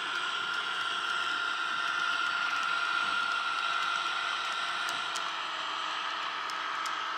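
Sound decoder in an N gauge Class 251 Blue Pullman model running on the layout, playing diesel engine sound through its small speaker as a steady whirring hum with a high whine. It grows a little louder as the train passes and eases off later.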